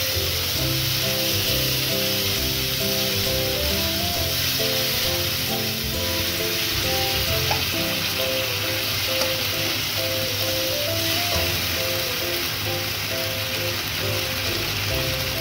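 Ginger-garlic paste and tomato frying in hot oil in a wok: a steady sizzle, with a light background melody of short notes playing over it.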